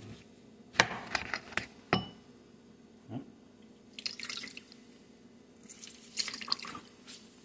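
A knife cuts through a lemon with several sharp clicks against the cutting board. Then a lemon is squeezed by hand in two short crackly spells, its juice splashing and dripping into a glass bowl.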